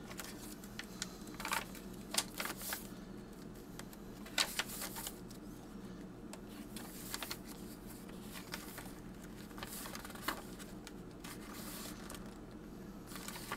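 Pages of a handmade junk journal's cardstock and paper signatures being turned and handled by hand: soft papery rustles and flicks at irregular moments over a steady low hum.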